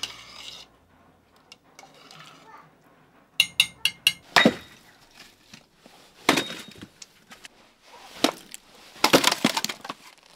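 Split firewood being gathered from a pile, pieces knocking together: a quick clatter of small knocks, then several louder single wooden clunks and a final cluster of them.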